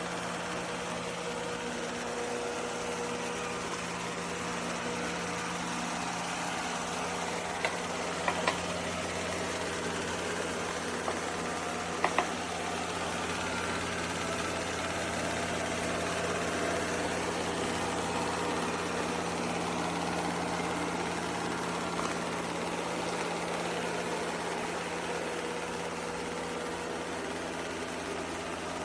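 Eureka E20 Plus robot vacuum running with a steady motor hum, with a few short clicks or knocks near the middle.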